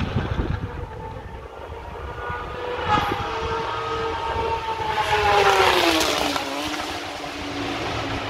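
Straight-piped 2012 Honda CBR1000RR's inline-four at high revs on the track. Its note gets louder about five seconds in, then drops in pitch as it goes past. There is a sharp crack about three seconds in.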